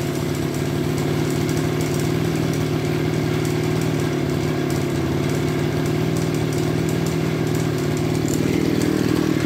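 Tanaka SUM328 brushcutter engine running at a steady speed, with no revving.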